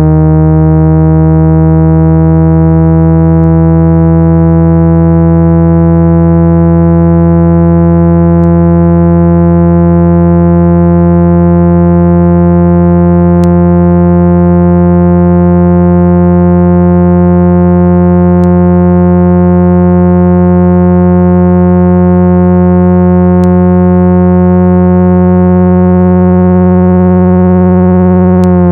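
A synthesized speaker-cleaning tone of about 165 Hz: a loud, steady, buzzy low hum with overtones, its pitch drifting slowly upward. It is played through a phone's speaker to vibrate dust and small particles out of the speaker grille.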